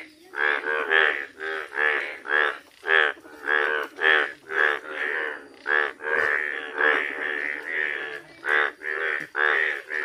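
Chorus of male Indian bullfrogs in yellow breeding colour calling to attract mates: a rapid run of loud croaks, two or three a second, several frogs overlapping.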